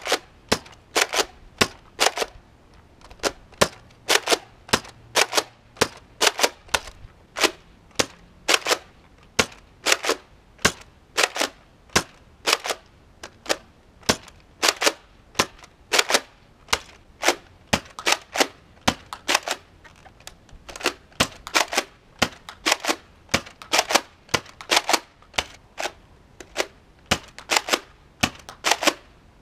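Nerf Modulus Recon MK II spring-powered dart blaster being primed and fired over and over: a steady run of sharp plastic clacks and pops, about two a second, often in close pairs.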